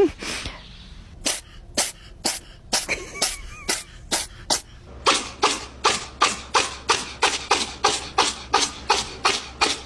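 Cat sneezing over and over in a fit of short, sharp sneezes: about two a second at first, then quickening to about three a second from about halfway.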